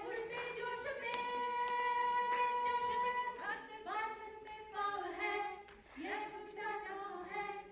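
Two women singing a Hindi song unaccompanied into a handheld microphone, holding one long note about a second in, then going on in shorter phrases.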